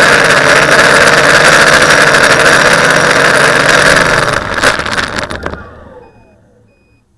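TBS Discovery quadcopter's electric motors and propellers running steadily. Several knocks follow about four and a half to five and a half seconds in, then the motors wind down with falling pitch and stop. A faint, evenly repeating beep starts near the end.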